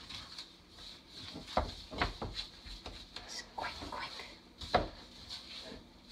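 Wooden spoon stirring wet biscuit dough in a mixing bowl: soft scraping and squelching, with a few sharp knocks of the spoon against the side of the bowl.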